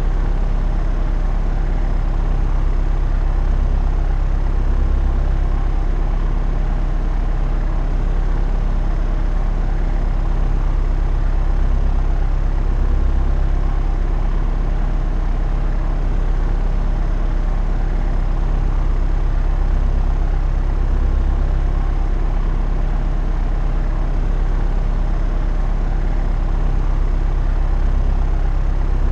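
Propeller aeroplane in flight: a steady engine-and-propeller drone with a deep, even hum that swells slightly every several seconds.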